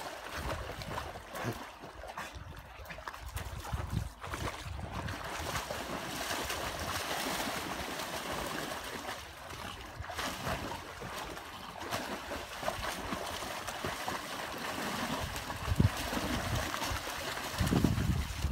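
Dogs wading and paddling through shallow river water, splashing and sloshing, over the steady rush of the water. A couple of low bumps stand out near the end.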